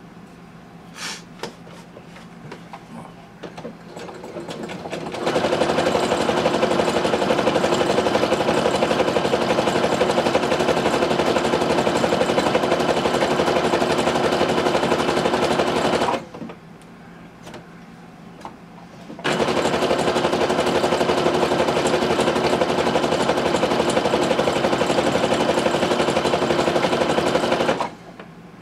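Brother NQ470 domestic sewing machine stitching embroidery, after a few light clicks at first. It starts about five seconds in and runs steadily, stops for about three seconds midway, then runs again until just before the end.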